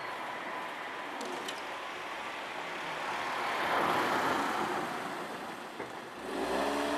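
Road vehicles passing, one swelling to its loudest about four seconds in; another engine comes in near the end.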